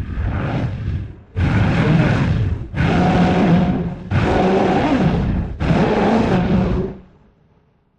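Creature roar sound effect for the Sea Eater, a fictional sea monster: a softer opening call, then four loud, pitched roars back to back, each about a second and a half long, trailing off near the end.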